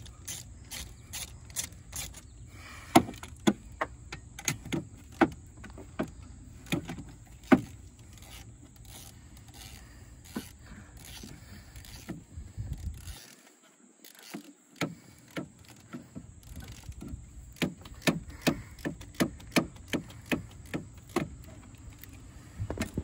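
Hand driver working a hose clamp on a diesel charge pipe, with sharp metallic clicks and scrapes. The clicks come in two runs of about two a second, one early and one near the end.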